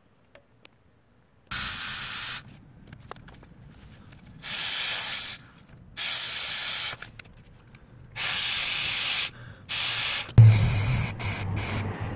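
Aerosol can spraying through a thin straw nozzle in five short hissing bursts of about a second each. About ten seconds in, a louder knock is followed by scraping.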